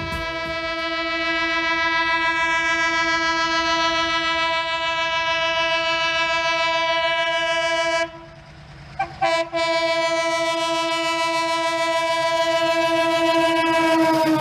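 Horn of an ALCo WDM3A diesel locomotive blowing a long blast of about eight seconds, then two short toots and a second long blast that drops in pitch near the end. Wheels clack over the rail joints underneath.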